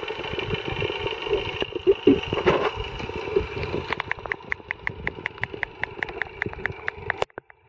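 Steady engine-like hum heard underwater, with knocks and bumps at first. From about halfway in, a fast, even ticking of about three a second joins it. The sound cuts off suddenly near the end.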